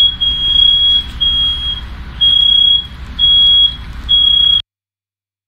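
Smoke alarm beeping, a single high-pitched tone about once a second, set off by the smoke filling the room. It cuts off suddenly near the end.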